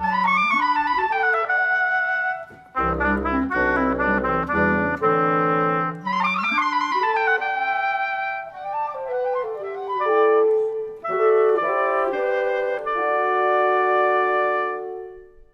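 Woodwind quintet of flute, oboe, clarinet, horn and bassoon playing, with quick runs swooping up and down over steady lower parts. It closes on a long held chord that stops near the end.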